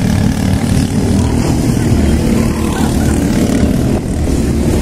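Racing kart engine of the Honda class running at speed on track, a steady, loud engine note.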